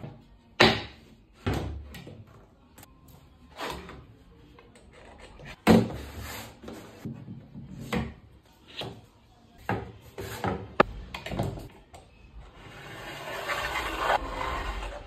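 Cut laminated board strips and one-handed bar clamps being handled on a wooden bench: a string of separate knocks and clunks, with scraping as the boards are slid into place and the clamps are set.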